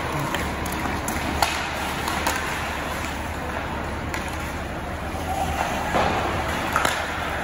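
Ice hockey play: a steady hiss of skates scraping on the ice, with half a dozen sharp clacks of sticks and puck scattered through.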